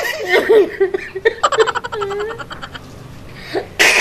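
Two men sobbing and wailing in exaggerated, comic fake crying. There is a quick run of gasping sobs about a second and a half in, and a louder, rougher wail near the end.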